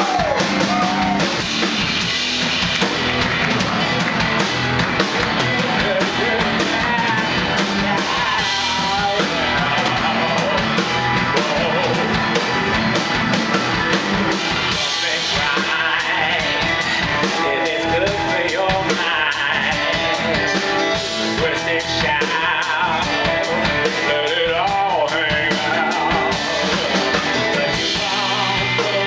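A rock band playing, with drum kit and guitar, and a singer's voice carried over the band.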